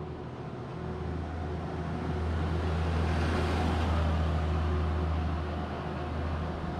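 Small flatbed utility truck driving past close by, with a steady low hum under it. The sound swells to its loudest about three to four seconds in, then fades as the truck moves on.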